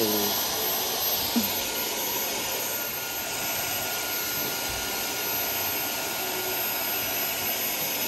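Dyson vacuum cleaner running steadily, an even hiss of rushing air. A faint high whine comes in about three seconds in.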